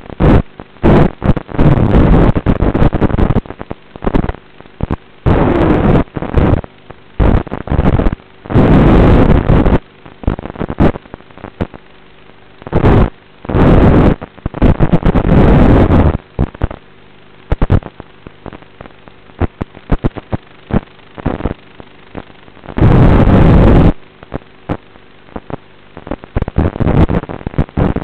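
FPV quadcopter's motors and propellers picked up by its onboard camera microphone, blaring out in loud, distorted bursts that swell and drop with the throttle, between quieter stretches with a faint steady hum.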